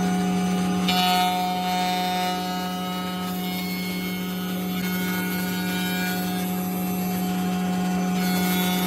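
An electric woodworking power tool running steadily with a constant motor hum, while it works wood with a rubbing, cutting sound. The cutting noise grows about a second in and again near the end.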